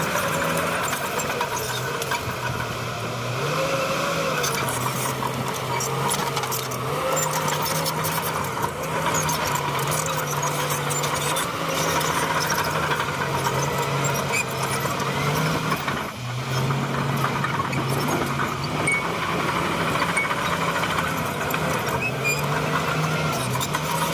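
Shantui crawler bulldozer's diesel engine working under load, its pitch rising and falling as the machine pushes, with squeaks and scattered clanks from the steel tracks.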